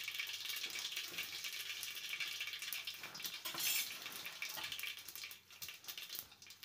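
Mustard seeds spluttering and sizzling in hot oil in an aluminium pressure cooker, a dense fast crackle that dies down near the end.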